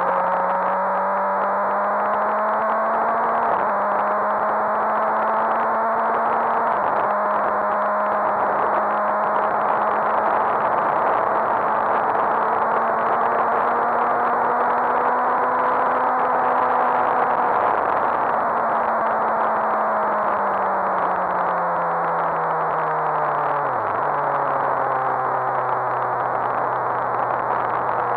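Suzuki GSX-R1000 K7's inline-four engine running at track speed under heavy wind rush, pulling through the gears with two quick drops in engine pitch as it upshifts early on. Later the engine speed falls steadily as the bike slows, with a sudden dip near the end before it settles at a lower pitch.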